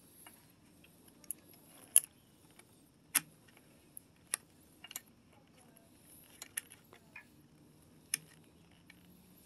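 Small sharp clicks and taps at irregular intervals, the loudest about two seconds in, from a motorcycle battery's terminal bolt and red rubber terminal cover being handled and fitted by hand.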